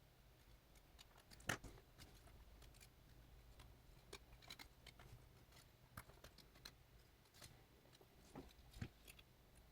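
Near silence broken by scattered faint clicks and taps of small repair tools working at a tiny clip inside an opened iPhone 7 Plus, with a sharper click about a second and a half in and another near the end.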